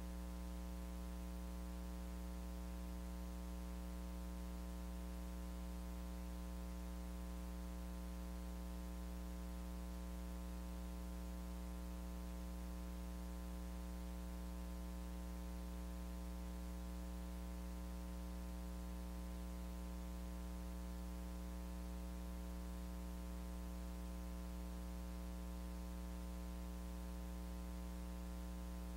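Steady electrical mains hum: a low buzz with many overtones under a faint hiss, unchanging throughout, with no voices heard.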